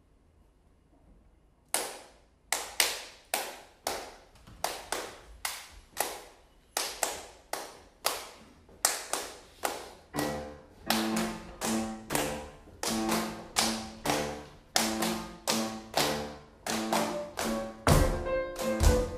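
Flamenco palmas: hand clapping in a steady, accented rhythm of roughly two claps a second, starting after a short pause. About halfway through, piano chords join on the beat, repeating the same low notes.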